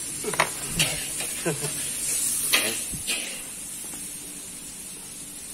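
Food frying in a pan, a steady sizzling hiss, with a few short knocks and snatches of voice. The sizzle dies down after about three seconds.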